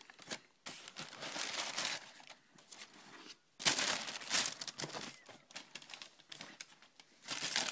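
Tissue paper crinkling and rustling in irregular bursts as a sneaker is unwrapped and lifted out of its shoebox. The rustling is loudest about four seconds in and again near the end.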